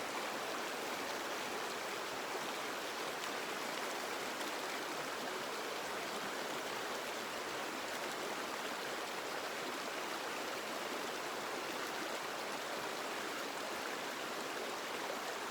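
Stream water flowing over rocks, a steady rushing babble without change.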